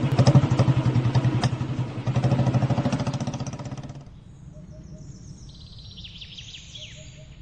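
An engine running with a fast, even pulse, cutting off abruptly about four seconds in; faint bird chirps follow.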